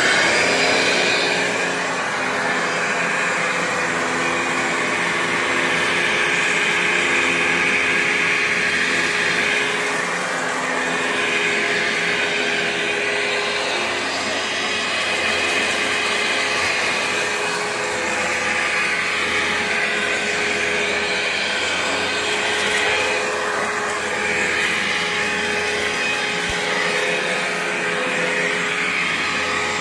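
Dirt Devil Vision vacuum cleaner running steadily, its motor whine wavering slightly in pitch.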